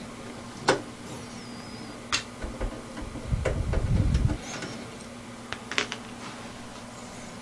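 Clicks and knocks of a desktop computer's case and parts being handled, with a low rumbling scrape about halfway through.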